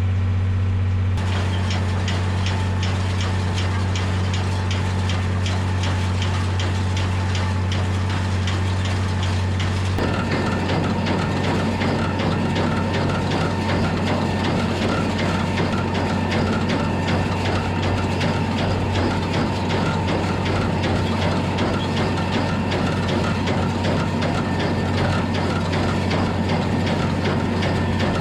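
Tractor engine running steadily under load with a hay baler working, with fast mechanical ticking from about a second in. About ten seconds in, a louder rattling rush of machinery joins and keeps going.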